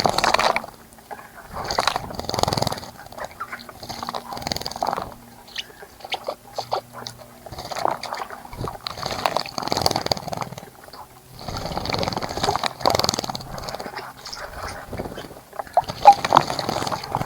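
Water splashing in a bird bath as a bird bathes, in irregular flurries of a second or two with short pauses between.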